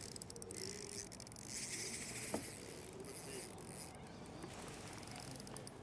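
Faint, repeated bird cooing, with a soft hiss and a single sharp click about two and a half seconds in.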